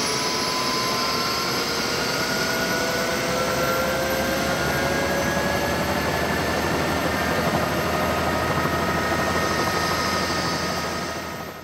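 A turbine tour helicopter running on the helipad close by: a steady loud rush of rotor and engine noise with whining tones that slowly rise in pitch over the first several seconds, fading away near the end.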